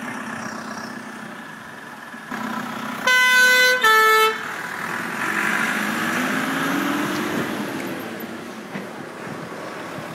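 A vehicle horn sounds two loud blasts about three seconds in, the second a little lower in pitch. Then a vintage fire engine's engine runs past close by, rising and then fading.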